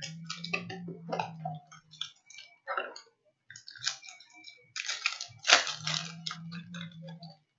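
A box of NBA trading cards being opened by hand: its cardboard and plastic wrapping tearing and crinkling in a dense run of crackles, loudest about two thirds of the way through. A low hum runs underneath near the start and again near the end.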